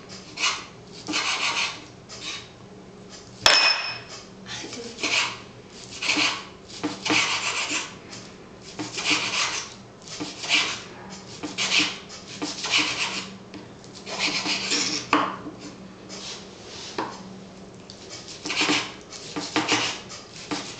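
Knife hand-chopping raw sirloin steak on a wooden cutting board: irregular strokes of the blade through the meat onto the wood, roughly one a second. About three and a half seconds in, one sharp click rings briefly.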